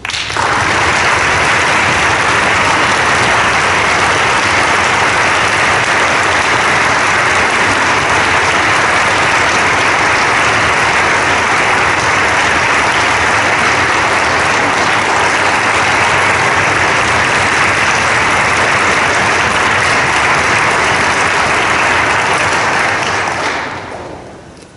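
Audience applauding steadily, then fading away near the end.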